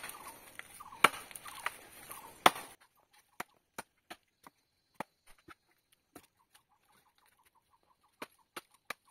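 Machete chopping into a wooden pole. Three loud sharp strikes come in the first two and a half seconds, followed by a run of lighter, quicker clicks and taps.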